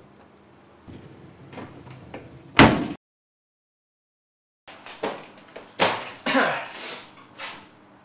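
Clunks and knocks from a coin-operated laundry machine's door and controls. A loud single knock comes about two and a half seconds in, then a short silence. After that comes a run of clunks and rattles as the door is handled.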